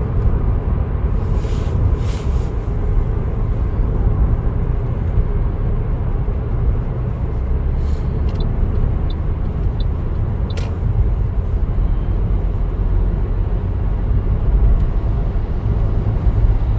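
Steady low rumble of a vehicle's engine and road noise, heard from inside the cab while driving, with a few small clicks.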